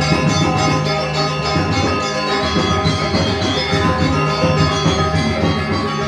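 Balinese gamelan ensemble playing, with many bronze metallophones ringing together in a dense, continuous texture.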